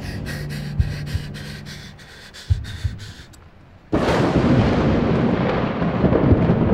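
Horror-film sound design: slow heartbeat thumps in pairs over a low dark drone with a fast faint ticking, about five a second. About four seconds in, a sudden loud rumbling wall of noise cuts in and holds.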